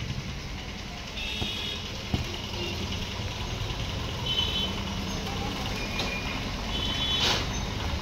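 Outdoor background noise: a steady low rumble, with a few faint short high calls and two brief sharp knocks, the second near the end.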